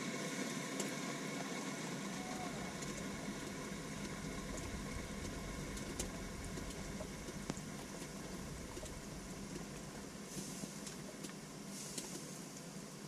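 Steam and boiling coolant hissing out of an overheated truck radiator whose pressure cap has just blown off, the hiss slowly dying down, with a few faint ticks.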